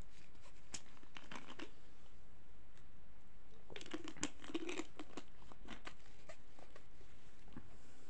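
Plastic bottle crinkling and clicking in the hands, with a denser cluster of crackles about four seconds in as the fingers work at its cap.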